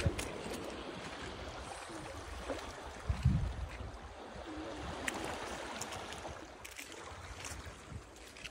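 Sea water lapping and sloshing against a rocky shore, with a couple of low thumps, the loudest about three seconds in.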